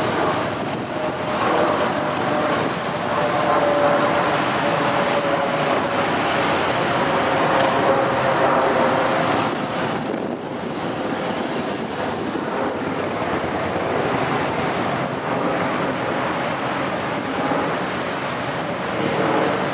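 Cruiser motorcycle engines running at low speed as the bikes are ridden slowly through cone maneuvers, under a steady rushing noise; one faint engine tone sinks slowly in pitch during the first half.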